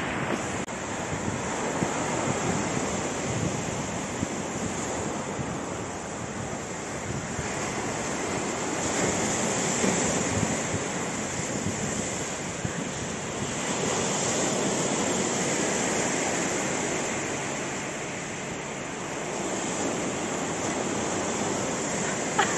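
Rough sea surf breaking and washing over a rocky shore, a steady rushing that swells and eases every few seconds, with wind on the microphone.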